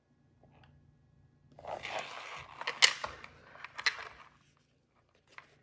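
Handling noise: a rustle with several sharp clicks, the sharpest about three seconds in, as the pochette is handled and the phone camera is moved.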